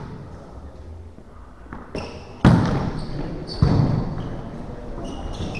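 Volleyball struck hard twice, about a second apart, each hit echoing in a sports hall, the first about two and a half seconds in.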